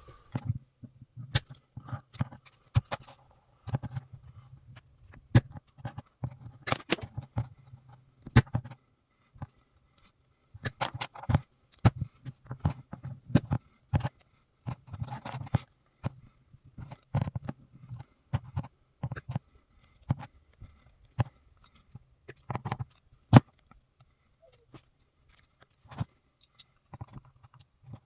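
Irregular clicks, taps and light rattles of small metal tools and brass cartridge cases being handled and set down on a workbench, in scattered clusters with short pauses.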